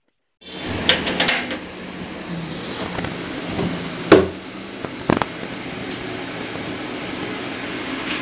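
A wok of oil heating on a gas stove: a steady hiss, with a quick run of clicks about a second in and sharp clanks of a metal spatula against the wok about four and five seconds in.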